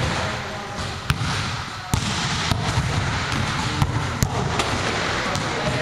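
A volleyball being struck and bouncing in a gym hall: about six sharp, separate knocks at irregular spacing over a steady background of hall noise.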